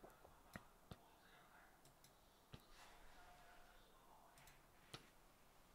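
Near silence: faint room tone broken by a handful of short, sharp clicks scattered through it.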